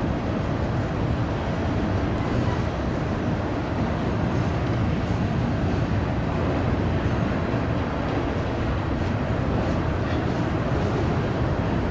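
CN freight train running past with a steady low rumble.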